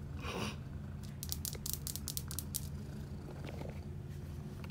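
A short rustle, then a quick run of light clicks and crackles lasting about a second and a half, over a steady low hum, as a cat is petted and moves about.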